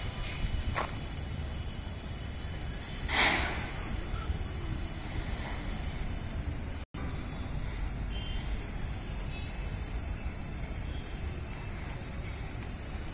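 Crickets trilling steadily in the night background over a low rumble, with a short louder rushing noise about three seconds in. The sound cuts out for an instant about seven seconds in.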